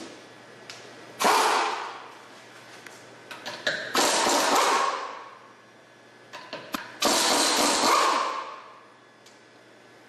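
Three hissing blasts of pressurised air or spray, each lasting about a second and fading out, with small clicks before the second and third. This fits clearing or cleaning the brake caliper during an electronic-parking-brake pad change.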